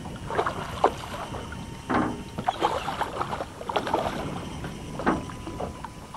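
Water slapping and lapping against a small boat's hull in irregular splashes while a redfish is played on the line.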